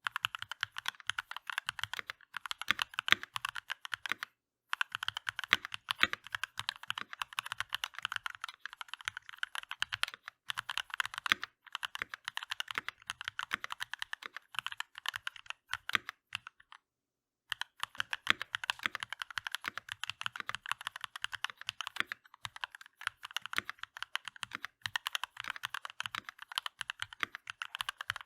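Fast continuous typing on a Keychron V1 mechanical keyboard with DCX keycaps: dense key clacks, with two brief pauses, about four seconds in and again past the middle.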